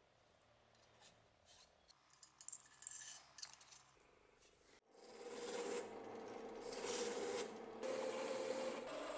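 A few light clicks and scrapes of small metal blowtorch parts being handled. About halfway through, a wire brush wheel spinning in a bench drill press starts scrubbing a metal blowtorch tube held against it, a steady scratchy rasp that is the loudest sound.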